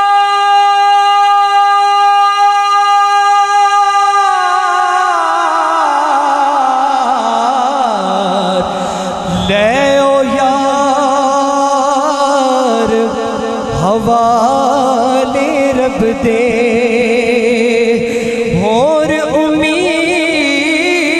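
A man singing a naat into a microphone: one long held note, which about four seconds in slides slowly downward and then breaks into a wavering, ornamented melodic line.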